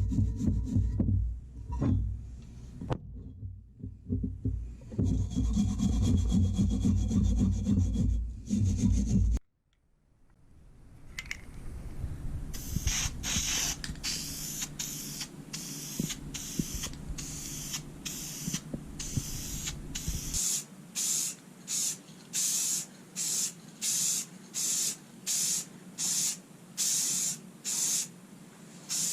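Hand filing or sanding on the press's steel parts. First comes a steady, heavy rubbing that cuts off suddenly. Then, after a cut, a run of quick, even scraping strokes at about three every two seconds.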